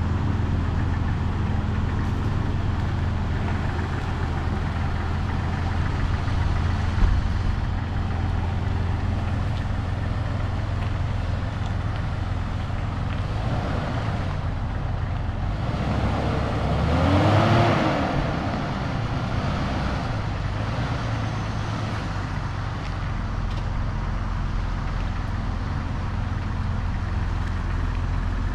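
Jeep XJ engine running steadily. A brief knock comes about a quarter of the way in, and a little past halfway the engine speed rises and falls once as it is revved or driven.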